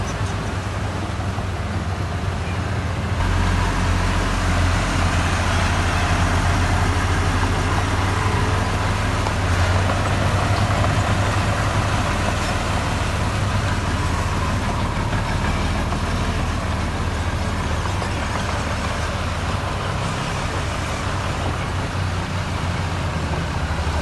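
Heavy diesel construction machinery running steadily under load, its engine getting louder about three seconds in and then holding.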